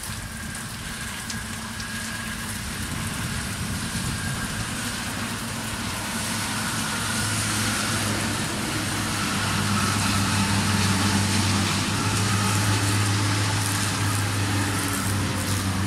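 Intercity coach bus passing at speed on a wet toll road: a steady low engine drone that grows louder through the middle and peaks near the end, over a constant hiss of tyres on wet asphalt and rain.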